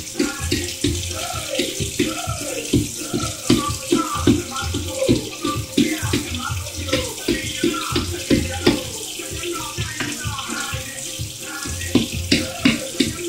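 Avocados being crushed by hand in a bowl for guacamole: quick, irregular knocks of the utensil against the bowl, about two to three a second, over a steady hiss.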